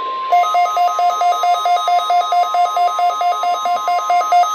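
NOAA Weather Radio 1050 Hz warning alarm tone, a steady single pitch that marks a weekly test of the weather radio alarm. Over it, shortly after the start, a loud electronic alarm comes in, warbling between two pitches about four times a second.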